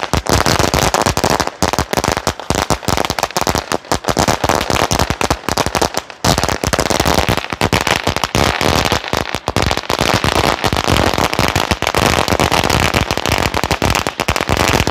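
A 10,000-cracker Cock brand firecracker string going off in a continuous, rapid rattle of bangs, with a momentary gap about six seconds in.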